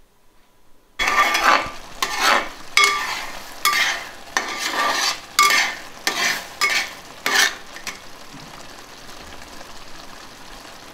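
A metal ladle stirring and scraping through thick rice payasam in jaggery syrup in a metal pot. There are about nine strokes, starting about a second in, then the pot simmers with a steady bubbling hiss as the syrup reduces.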